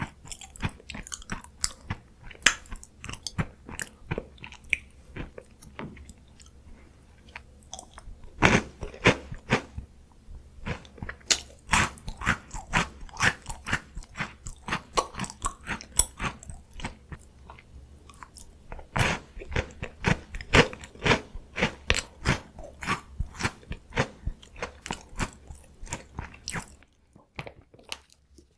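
Close-miked chewing and crunching of crunchy Korean chocolate snacks: a steady run of crisp crunches, with louder bites about a third of the way in and again past the middle, tapering off near the end.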